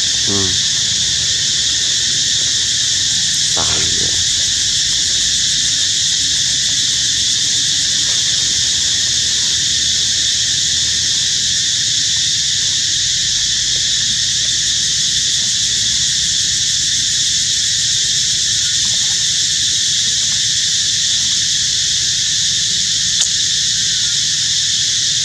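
A loud, steady chorus of insects drones without a break. Right at the start there is a short call falling in pitch, and there is another brief sound about three and a half seconds in.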